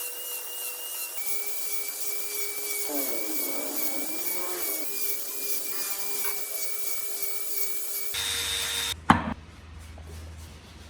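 Small power tool running against wood, its motor whining steadily with the pitch wavering while the tool bears on the piece. About eight seconds in the sound changes to a lower hum, with a single sharp knock a second later.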